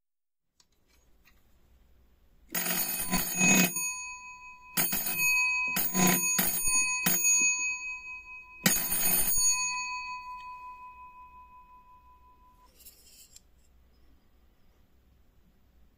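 Restored century-old electric vibrating doorbell powered from a 9-volt battery: its hammer rattles rapidly against the metal bell dome in five short bursts, the first the longest. After the last burst the bell's ring fades out over about three seconds.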